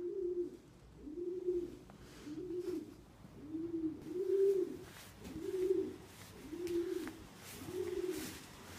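Pigeon cooing repeatedly: a low coo that rises and falls, about once a second, eight times over.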